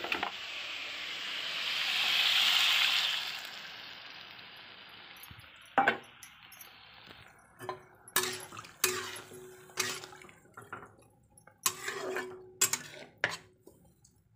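Water poured into hot masala in a kadhai: a loud sizzle that swells and dies away over the first few seconds. Then a metal spatula clatters and scrapes against the kadhai a dozen or so times while stirring the cauliflower and potato curry, with a short ringing note on several strikes.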